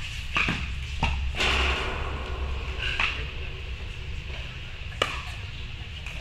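Pickleball paddles hitting the ball in a net exchange: a few sharp, isolated pops, the strongest about a second in with a brief rush of noise after it, then single pops near three and five seconds. A steady low hum runs under it, and the hits echo in a large indoor hall.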